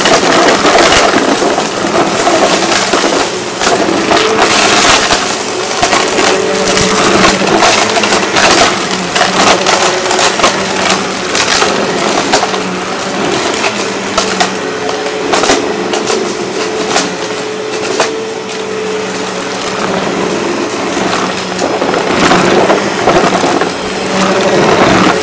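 Eureka Maxima upright vacuum running over carpet, its motor humming steadily while pennies and other small debris crackle and clatter as they are sucked up. Its brush roll is broken.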